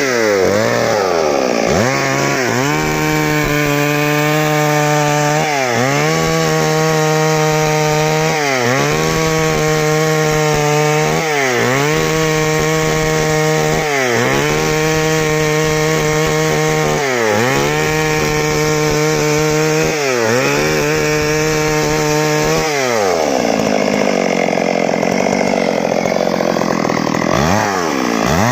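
Stihl MS 382 two-stroke chainsaw running at high revs, its pitch dipping briefly and recovering about every three seconds, then running lower and rougher for a few seconds near the end before revving back up. The saw is cutting wood on a test run after a stuck-piston repair.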